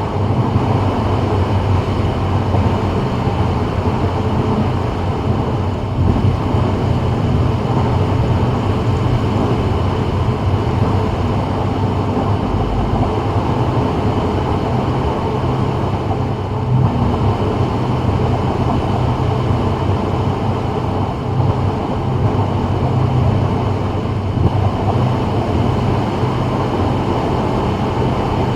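Steady road noise heard inside a 2024 Subaru WRX cruising on a rain-wet freeway: tyre hiss from the wet pavement over a low engine and drivetrain hum.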